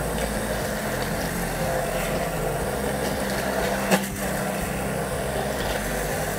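Kenwood immersion blender running steadily while puréeing thick cooked chickpeas and tahini into hummus in a steel pot, with a single sharp knock about four seconds in.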